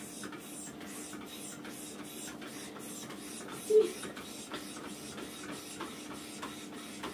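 Mini stepper being pumped steadily, its pedals and cylinders making a rhythmic swish-and-click about three times a second. A short vocal sound cuts in once a little past halfway.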